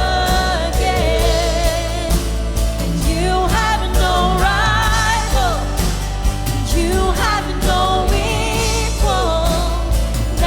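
A live church worship band plays with singers over drums, bass, guitars and piano. A sung melody runs over a steady bass.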